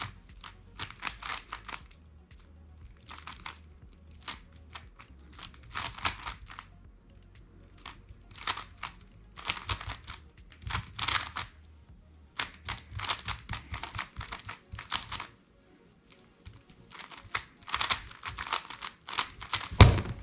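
Plastic 3x3 speedcube being turned fast by hand: rapid clicking and clattering in bursts of a second or two, broken by short pauses. A low thump comes near the end.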